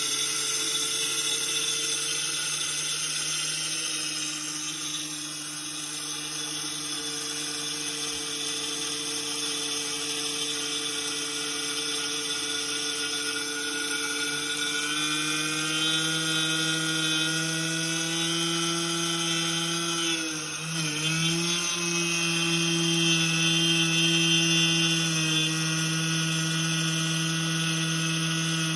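Miller 2500 electric grain mill running steadily as it grinds rye into wholemeal flour. Its pitch creeps up a little from about halfway and dips for a moment about two-thirds through before settling again.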